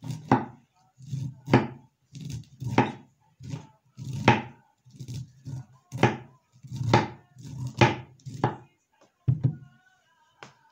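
Kitchen knife stripping the kernels off fresh ears of corn (desgranando elote): a steady run of scraping strokes, a little more than one a second, each with a low knock against the wooden cutting board. The strokes stop shortly before the end.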